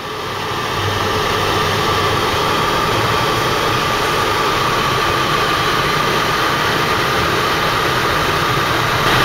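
Steady road and wind noise inside a moving car's cabin, fading in over the first second, then holding even.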